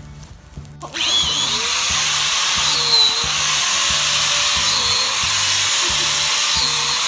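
High-speed DeWalt drill boring inoculation holes into a hardwood log. It starts about a second in and runs loudly with a high whine whose pitch dips about every two seconds as the bit bites into the wood. Background music with a steady beat plays underneath.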